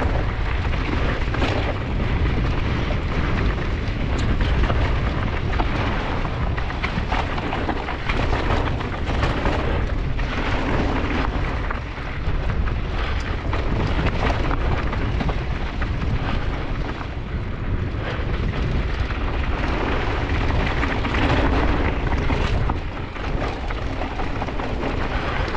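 Mountain bike riding over a rocky dirt trail: tyres crunching over loose rock, with frequent knocks and rattles from the bike, under heavy wind rumble on the microphone.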